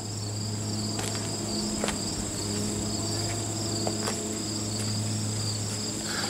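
Insects trilling, one call steady and a lower one pulsing, over a constant low hum, with a few faint clicks.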